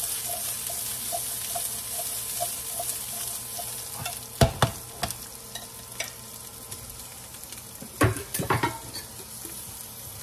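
Green beans and garlic sizzling in hot oil in a frying pan, a steady hiss, with a few sharp knocks about four and a half seconds in and again around eight seconds in.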